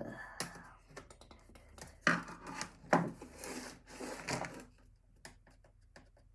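Plastic laptop casing being worked apart by hand: scraping and rubbing, with several sharp clicks as the clipped-together parts come loose.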